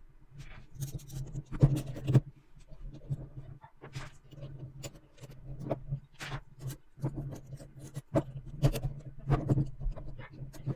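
Small metal construction-kit strips and parts clicking and rattling as they are handled and fitted together by hand, in many short irregular clicks, over a steady low hum.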